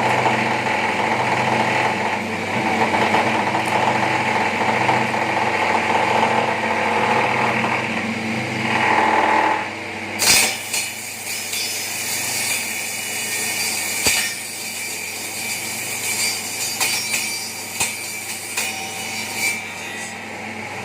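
Motor-driven bamboo skewer-cutting machine running with a steady hum. About ten seconds in the sound changes: it drops a little and is broken by scattered sharp clicks.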